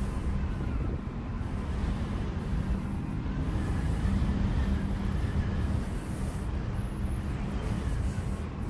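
A long, straight wooden drone pipe, played like a didgeridoo, sounding a steady low buzzing drone.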